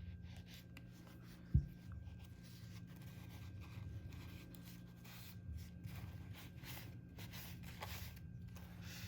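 A paper towel scrubbing cleaner over the rusty blade of a small folding knife on a Zippo money clip, in soft scratchy wiping strokes. One sharp knock comes about a second and a half in.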